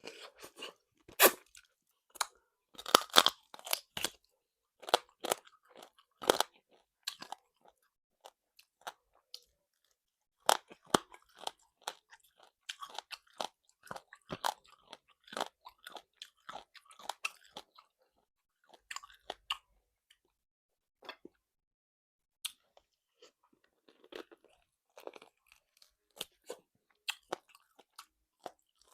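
A person eating a salt-baked chicken meal close to the microphone: crisp bites and wet chewing in short, irregular clicks, busiest in the first few seconds.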